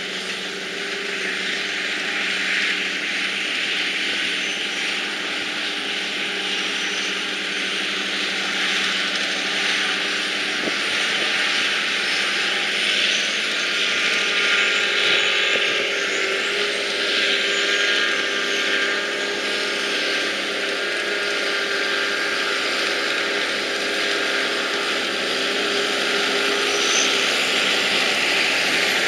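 Silage-harvesting machinery running: a steady engine drone with a wide rushing noise over it, growing slightly louder toward the end.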